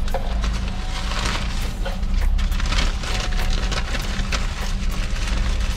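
Paper takeout bag rustling and crinkling in irregular crackles, over the steady low hum of the car's engine in the cabin.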